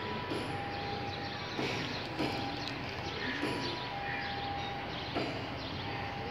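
Steady outdoor background noise with scattered short bird calls and a few light knocks.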